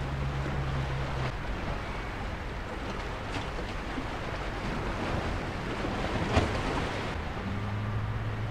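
Calm sea lapping against jetty rocks, with wind on the microphone. A low steady hum sounds at the start, stops, and comes back near the end, and there is one sharp tap about six seconds in.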